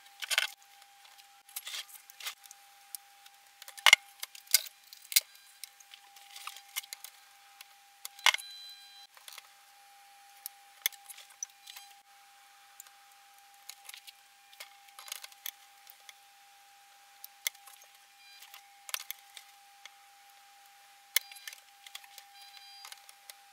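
Scattered sharp clicks, taps and light rattles from handling a clothes iron and a paper-wrapped copper-clad board on an opened laminator, the loudest about 4 and 8 seconds in. A faint steady high whine from the running laminator sounds throughout.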